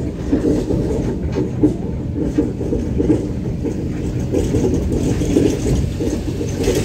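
Steady engine and road noise of a vehicle driving along a paved road, an unbroken low rumble.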